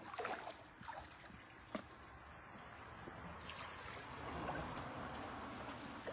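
Rubber boots wading through shallow creek water. There are a few splashing steps in the first two seconds, then a louder swell of sloshing water around four to five seconds in.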